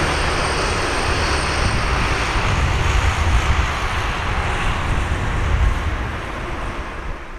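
Jet engine noise of an Airbus A330-200 airliner landing: a steady, loud rush with deep rumble, easing off slightly near the end.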